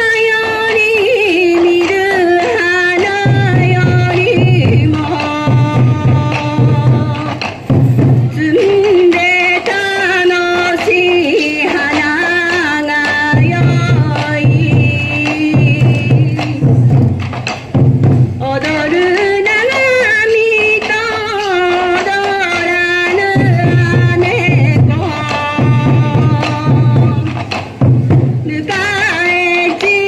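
Sansa odori folk music: a sung melody over taiko drumming, with the drum pattern coming and going in recurring phrases.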